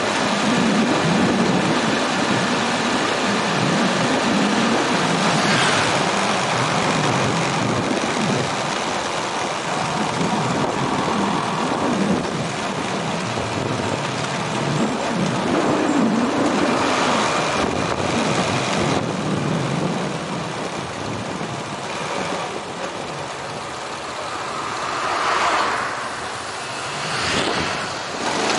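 Motorbike running along a city street, recorded from the moving bike: its engine hums under steady wind and road noise, with a few louder swells near the end as traffic goes by.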